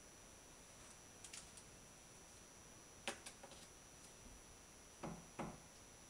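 A quiet room with a few faint clicks, then two soft thumps half a second apart near the end, from a cat pouncing on a canvas camp cot and catching a wand toy.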